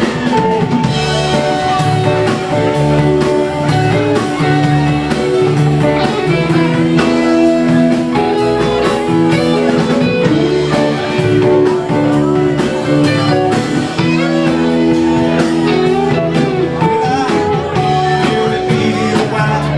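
Live rock band playing a song on guitars, drums and keyboard, with a steady beat and held chords.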